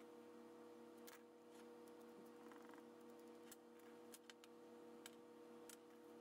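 Near silence: a faint steady hum with a handful of light clicks and taps as a small aluminium carburettor riser is handled on a workbench.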